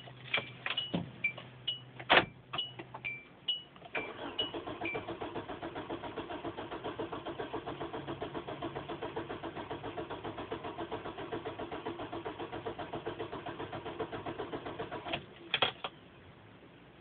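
A few clicks and short electronic chime beeps, then a car engine cranking on its starter for about eleven seconds with a rapid, even chug, never catching, before the starter stops. The engine turns over but will not start.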